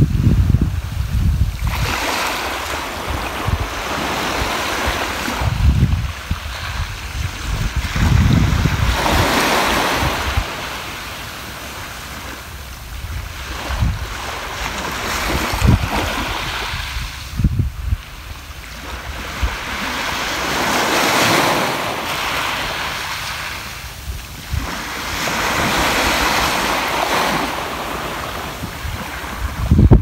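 Small sea waves washing up a dark pebble beach, each wash swelling to a hiss and drawing back every few seconds. Gusts of wind rumble on the microphone.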